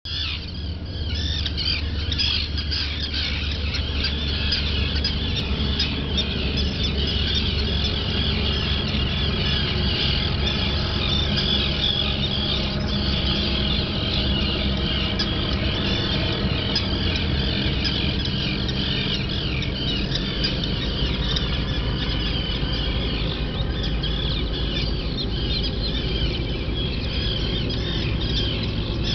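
Mallard ducklings peeping continuously in many overlapping high-pitched calls, over a steady low hum.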